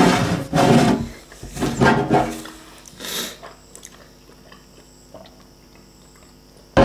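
Close-miked eating sounds: chewing and wet mouth noises for the first couple of seconds, then a short scrape and quieter handling as sambal is spooned from a small ceramic dish onto flatbread, ending in a sudden loud knock.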